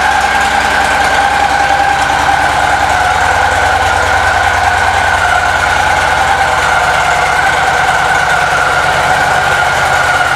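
Victory Freedom 106 V-twin engine of a 2016 Victory Cross Country idling steadily, with a steady whine over the low pulsing of the idle.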